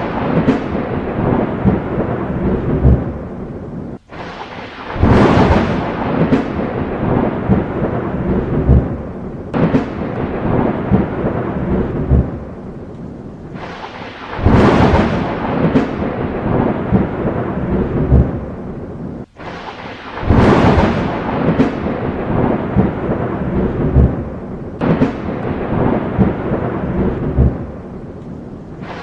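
Thunderstorm: peals of thunder that break suddenly and roll off into a rumble about every five seconds, over steady rain. The sound cuts out for an instant twice.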